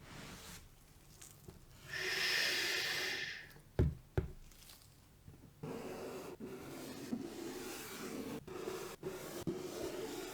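Unboxing handling of a sneaker box and its packing: a short scraping hiss, two sharp knocks a moment later, then continuous rustling and rubbing with brief pauses.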